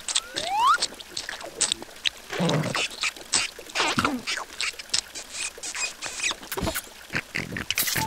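Cartoon larva characters' wordless gibberish voice noises mixed with comic sound effects: a short rising whistle-like glide about half a second in, then scattered short squeaky calls, clicks and pops.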